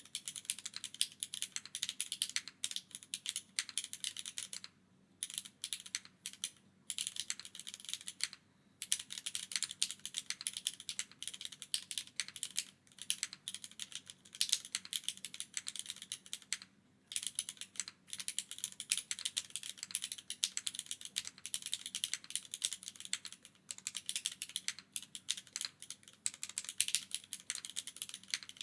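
Steady, fast typing on a gasket-mounted mechanical keyboard with an aluminium plate, no foam, Cherry HG Black linear switches and GMK doubleshot ABS keycaps: a dense run of keystroke clacks with a few brief pauses.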